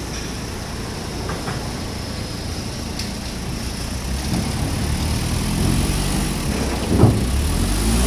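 A Hyundai forklift's engine running steadily as it drives a load of steel drums into a shipping container, growing louder toward the end. A single sharp knock comes about seven seconds in.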